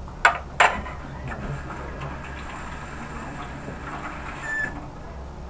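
Two sharp clinks as a metal spoon and a knife are set down on a plate, the second following the first within half a second. Softer kitchen handling sounds follow over a low steady background.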